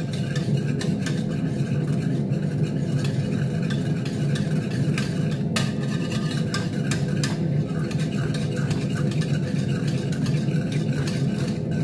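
Steady hum of a kitchen range hood fan, with a spoon clicking and scraping against an aluminium pot as a thick sauce is stirred; two sharper knocks come a little after the middle.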